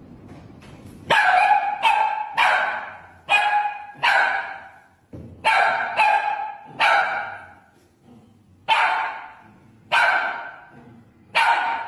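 Small poodle-type dog barking repeatedly: about eleven sharp, high barks in uneven bursts, each trailing off in room echo.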